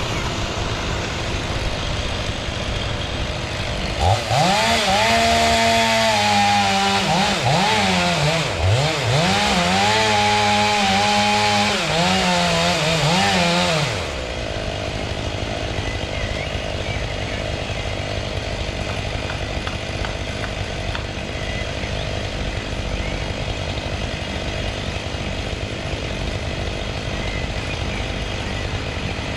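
Chainsaw running at full throttle for about ten seconds, its pitch dipping and recovering several times as the chain bogs down in the wood, then cutting off abruptly. A steady background rush of noise runs under it and continues after it stops.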